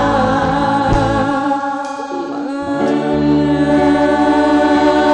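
Live rock band playing, with electric guitars, bass and keyboard holding sustained chords. The bass drops out for about two seconds in the middle and then comes back in.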